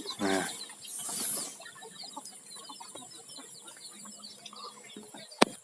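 A brood of day-old chicks peeping, a dense, soft chatter of many short high cheeps. A single sharp click sounds near the end.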